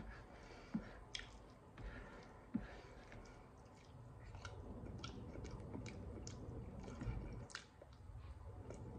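A person chewing a handful of rice and fish, with many short wet clicks and smacks of the mouth.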